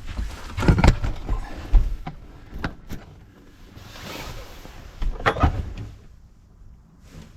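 Irregular knocks, clunks and rustling of parts and tools being handled, with two louder clusters of knocks about a second in and about five seconds in.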